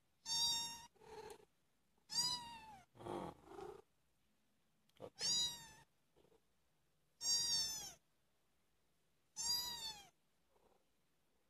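Month-old kittens meowing: five loud, high-pitched meows about two seconds apart, each dipping in pitch at the end, with a few softer, lower mews between the first ones.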